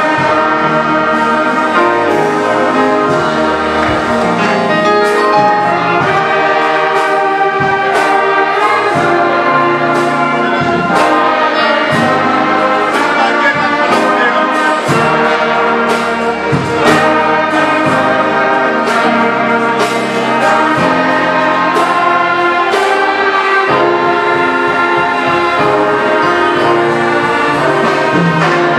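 Live orchestra, violins and brass, playing a hymn with a choir singing, steady and full throughout.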